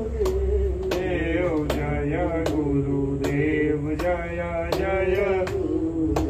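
Male voices singing a devotional Hindu chant, with a sharp percussive strike about every three-quarters of a second keeping time.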